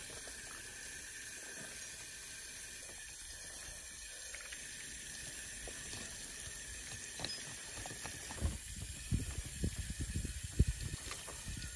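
Steady hiss of running water from a hose nozzle splashing onto a fish and a plastic cleaning-table mat. From about eight seconds in, irregular low knocks and thumps as the fish and knife are handled on the table.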